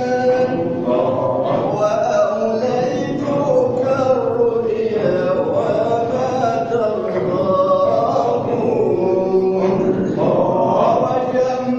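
Men's voices in Sufi religious chanting (inshad) for dhikr, sung continuously with a wavering melodic line.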